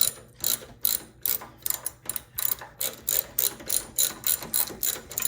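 Socket ratchet wrench clicking in quick, even strokes, about four to five clicks a second, as it turns the spark plug in the snowblower engine's re-threaded plug hole.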